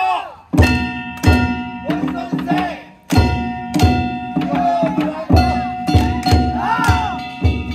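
Danjiri narimono: a taiko drum and ringing kane gongs struck together in a steady beat, about two strikes a second.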